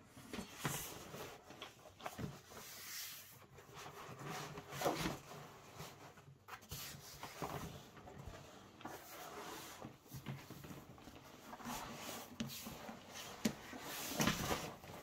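A 1.5 mm vegetable-tanned Lamport leather shoulder being unrolled and pushed flat by hand: irregular rustling and rubbing of the hide against the table, with a couple of sharp clicks near the end.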